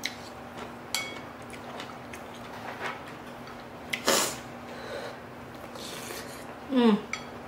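Eating sounds from a bowl of seafood soup: a wooden spoon clicking and scraping against a ceramic bowl a few times, a slurp about four seconds in, and a short hum that falls in pitch near the end as a spoonful goes into the mouth.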